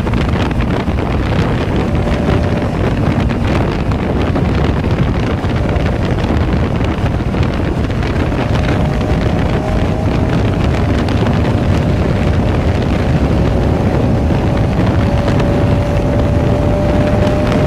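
Heavy wind buffeting on the microphone over the Bajaj Pulsar RS200's single-cylinder engine running at high speed. The engine note climbs slowly from about halfway through as the bike picks up speed.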